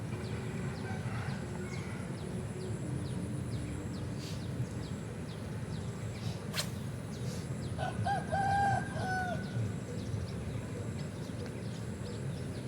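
A rooster crows once, about eight seconds in, a wavering call lasting about a second and a half. A sharp click comes shortly before it, over a steady high whine and low background noise.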